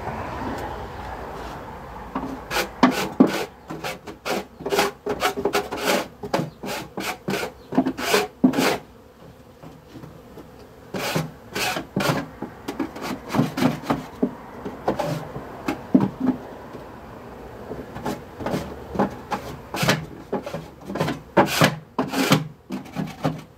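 Hive tool scraping and knocking on the wooden hive body and frames, cleaning them out: a long run of short, irregular scrapes, with a couple of brief pauses.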